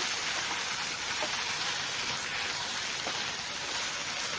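Chicken pieces with chopped tomato, onion and capsicum sautéing in a pan with a steady sizzle as they are stirred.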